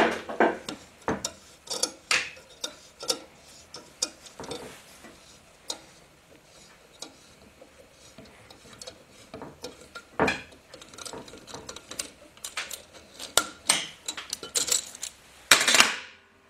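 Irregular metallic clicks and clanks of a C-clamp valve spring compressor being handled and taken off an engine's cylinder head, with sharper knocks at the start, about ten seconds in, and a louder clatter near the end.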